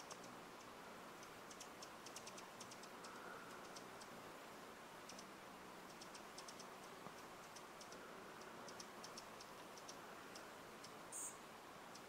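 Faint, high, dry chip notes of a hummingbird, coming in irregular quick runs over a quiet steady hiss, with one brief high buzz near the end.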